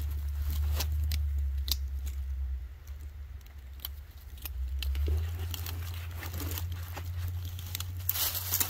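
Clothing and twigs rustling and crinkling close to the microphone, with scattered small clicks over a steady low rumble. The crackling grows denser near the end.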